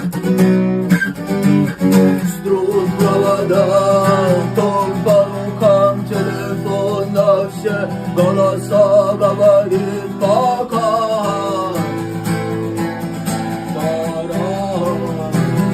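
Instrumental song intro: strummed guitar chords under a sliding, wavering lead melody that enters about two and a half seconds in.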